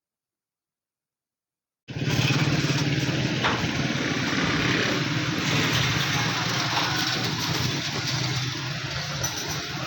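Silence for about two seconds, then a vehicle engine running steadily with a constant low hum.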